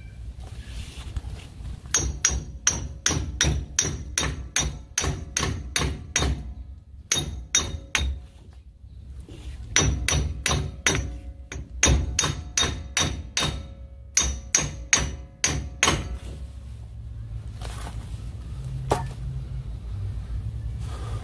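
Hammer striking a large socket set against the pinion flange of a Dana 44 axle, driving the flange onto the pinion splines. The metal rings after each blow. The blows come in quick runs of about two or three a second, with short pauses between runs, and they stop a few seconds before the end.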